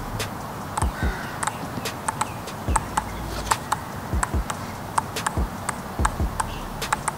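Two ping-pong balls bounced over and over on table tennis paddles: sharp, light ticks from two players overlapping in an uneven rhythm of about three a second.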